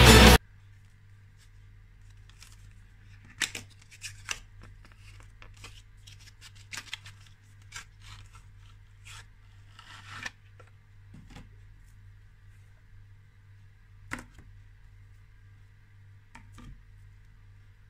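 Cardboard puzzle boxes handled and slid open by hand: scattered taps, scrapes and rustles of card, with a sharp tap about three and a half seconds in and another near fourteen seconds, over a faint steady hum.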